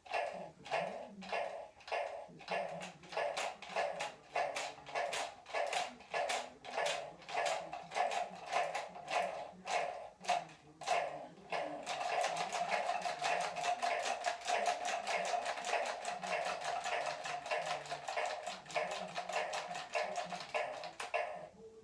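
Electronic drum beat from a Bop It toy's speaker: a clicky beat about twice a second with a low tune under it, which speeds up about halfway through to roughly four beats a second over a steady tone.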